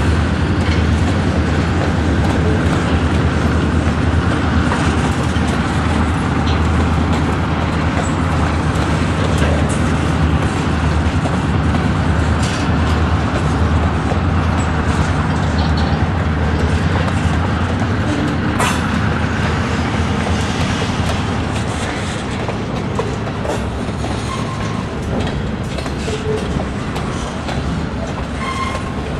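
Freight cars of a long train rolling past: a steady rumble of steel wheels on rail with scattered clicks and clanks. The rumble eases a little after about twenty seconds.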